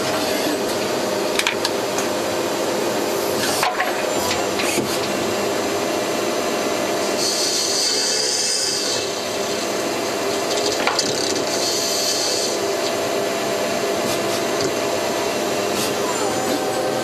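Miyano BNA-42DHY CNC lathe running a machining cycle: a steady mechanical whir with cutting noise and a few sharp clicks. A high hiss comes in twice around the middle.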